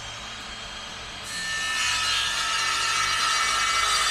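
Handheld circular saw running at speed, then cutting into a kitchen carcass board about a second in, where it gets louder. The board is cut face down so the upward-turning blade leaves any chip-out on the top side.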